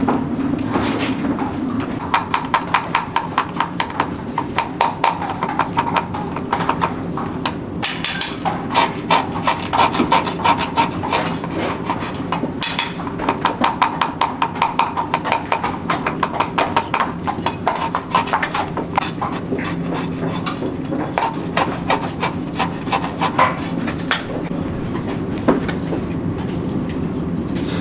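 Farrier's hammer tapping in quick runs of light metallic strikes, several a second, with short pauses between runs, over a steady low hum.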